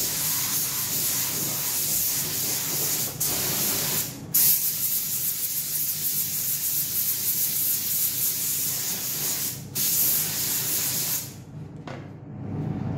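Compressed-air gravity-feed spray gun spraying primer onto a plastic motorcycle fairing panel: a steady hiss of air and atomised paint in passes, with brief trigger releases about three, four and nine and a half seconds in, stopping near the end.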